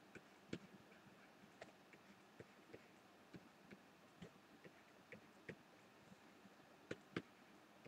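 Faint, irregular light ticks and taps of a stylus on a drawing tablet while sketching, a dozen or so spread unevenly, with two slightly louder taps near the end.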